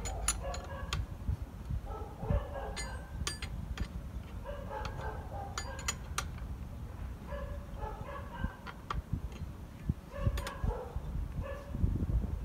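Spanner working on a Salyut-S bicycle crank, giving irregular sharp metal clicks and clinks. Chickens cluck in short bursts in the background.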